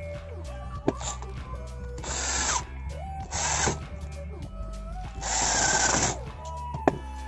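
Cordless drill/driver running in three short bursts, the last the longest, over background music.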